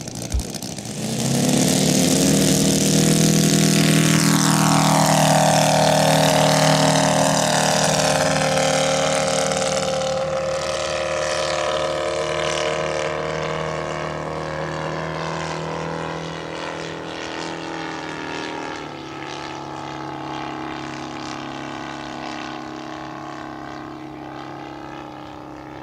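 Home-built scale replica of a Siemens & Halske SH11 radial engine in an RC model biplane, opened up for takeoff about a second in. Its pitch drops as the plane passes by, and it then fades steadily as the plane climbs away.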